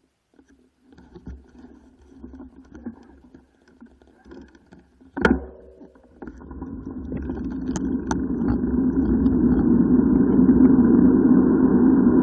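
Wind rushing over the microphone and bicycle tyre noise on tarmac, rising steadily as the bike picks up speed downhill. A single sharp knock about five seconds in.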